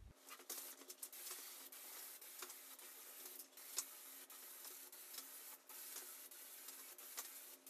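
Aerosol can of spray contact adhesive hissing as it is sprayed, in long passes with a few brief breaks, and a sharp click about four seconds in.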